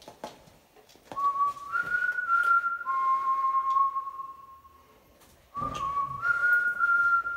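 High whistling tones in two bouts, about a second and about five and a half seconds in. Each bout holds two steady pitches that overlap for about a second, then one lower pitch carries on alone.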